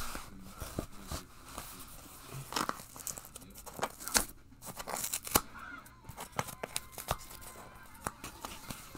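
A vinyl record's mailing package being torn and picked open by hand: irregular tearing and crinkling with scattered sharp clicks, from a package that is hard to get open.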